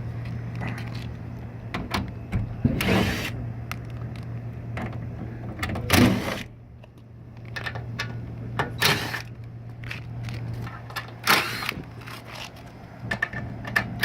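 Rattling and scraping of a rooftop AC package unit's panels and dirty air filters being handled, with scattered clicks and several louder scrapes, over a steady low hum.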